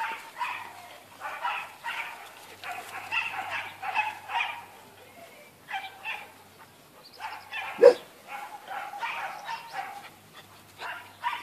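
Several puppies yipping and barking in play, in many short bursts of high-pitched calls. One louder, sharp sound comes about two-thirds of the way through.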